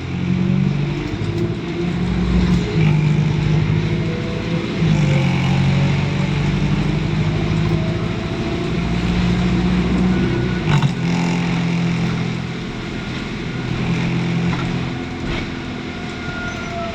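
Diesel engine of an ADL Enviro400 double-decker bus running under load, with a rising whine over its note as it gathers speed, and a single sharp knock near the middle.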